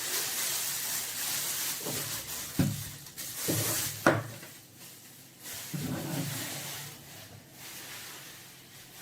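Packaging rustling as a boxed appliance is handled and unpacked, with two sharp knocks about two and a half and four seconds in.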